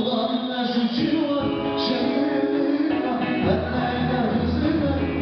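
Live music for a folk line dance at a Turkish wedding, with long held melodic notes. The low drum beat drops out and comes back about three and a half seconds in.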